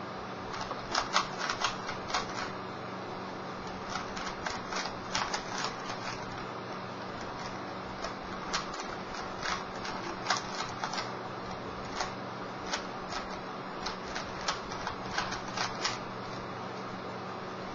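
Rubik's Cube being twisted by hand: the plastic layers turning with irregular, quick clicks and clacks, often in short flurries, over a faint steady low hum.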